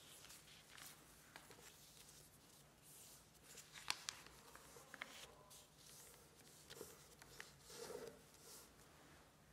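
Sheet of origami paper rustling and crackling faintly as hands fold it and press down the creases, in short scratchy bursts, with one sharp crisp crackle about four seconds in.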